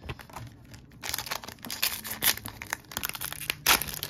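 Foil wrapper of a Pokémon card booster pack crinkling and being torn open: a dense run of sharp crackles starting about a second in, loudest near the end.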